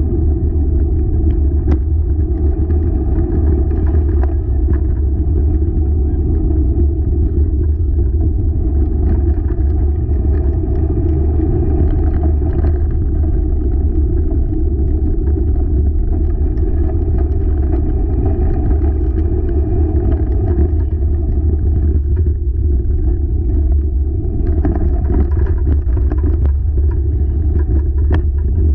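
Wheeled dog rig rolling along a trail at speed: a steady, loud rumble.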